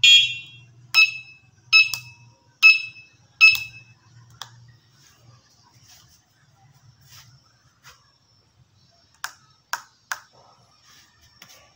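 Electric bike's electronic beeper giving short ringing pings, four in a row about a second apart and fading quickly, over a faint low hum. Three sharp clicks come close together a little after nine seconds.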